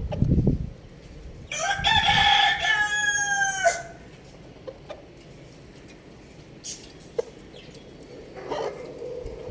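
Rooster crowing once, a single call of about two seconds that holds its pitch and then drops at the end. Near the end a short, lower cluck follows.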